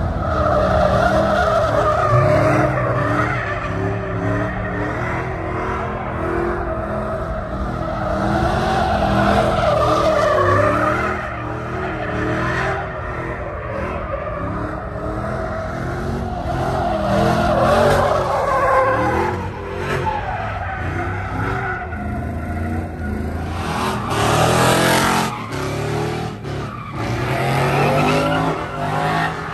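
Lowered pickup trucks doing burnout donuts: the engines run at high revs while the rear tyres spin and squeal on the asphalt, the squeal wavering in pitch as they circle. About three-quarters of the way through, the sound changes abruptly.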